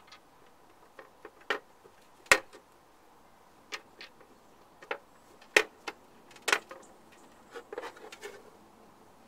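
Hard plastic clicks and knocks, about ten at irregular times, from the plastic housing of an Evetek decoy alarm box being pressed together and handled. The sharpest snap comes about two seconds in, and a quick flurry of lighter clicks comes near the end.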